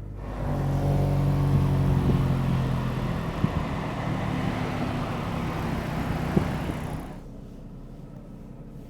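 Mercedes-AMG C63's turbocharged 2.0-litre four-cylinder idling just after a sport-mode start, heard from outside the car, easing off after a couple of seconds. Two sharp exhaust cracks come about halfway through and near the end, and about seven seconds in the sound drops to a quieter, duller hum.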